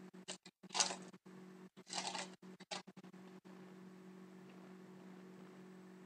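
Crinkling of a foil trading-card pack wrapper and the cards being handled, a few short rustles in the first three seconds. A steady low hum runs underneath.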